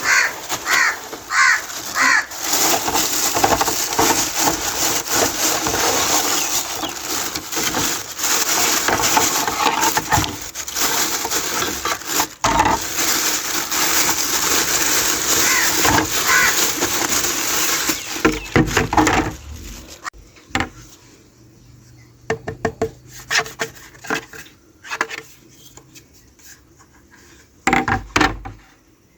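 Hands working toy packaging and small plastic pieces: a long stretch of dense scratchy rubbing and rustling, then, about two-thirds of the way in, it drops to scattered light clicks and taps.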